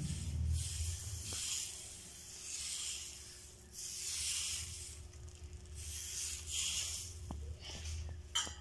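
A steel ladle spreading dosa batter in circles on a hot non-stick tawa: a soft swishing hiss about once a second, over a low steady hum.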